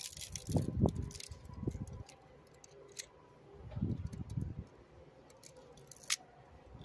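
Low thuds and rustling as an electric snow blower's motor stator is handled, then one sharp snip about six seconds in: cutters going through the stator's copper windings.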